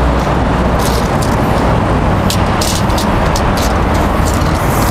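Self-propelled crop sprayer's engine idling steadily, a low even hum with a few short high clicks over it.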